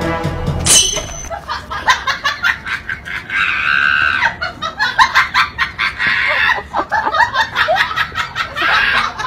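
Bursts of rapid, high-pitched cackling laughter, repeated several times, with a short sharp high swish about a second in.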